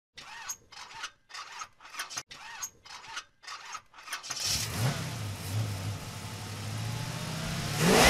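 Car engine start: a run of short sounds about twice a second for four seconds, then the engine catches and runs steadily, and revs up near the end.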